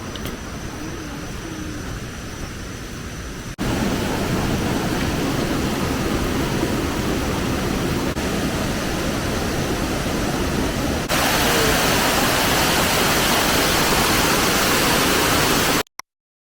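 Waterfall: a steady rush of falling water, heard in three clips that each get louder at a cut, then cutting off to silence near the end.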